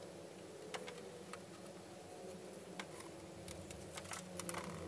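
Faint, irregular light clicks and taps as a plastic model rocket section is handled and marked with a marker pen, a few more of them near the end.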